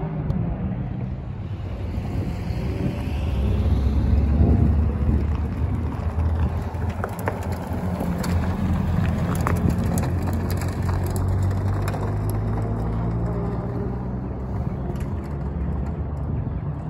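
Supercar engines running at low revs, swelling to the loudest point about four seconds in as a car passes close, with scattered sharp crackles in the middle.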